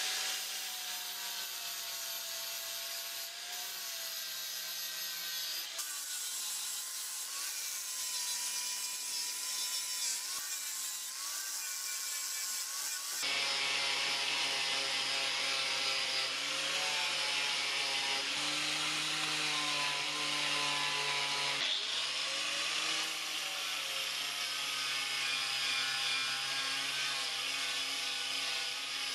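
Angle grinder with an abrasive disc grinding the metal sliding jaw bar of a Dawn 5SP vice. A steady motor whine that sags and recovers as the disc bears on the metal sits over a hissing grind, and it drops to a lower, fuller whine about halfway through.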